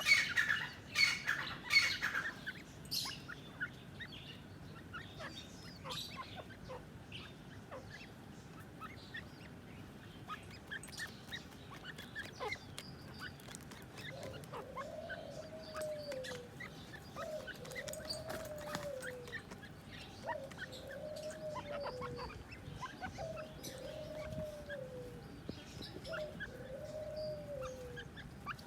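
Grey francolin calling, loudest in the first two seconds. Faint bird chirps follow. From about halfway through, a soft call that rises and falls repeats about every three seconds, six times.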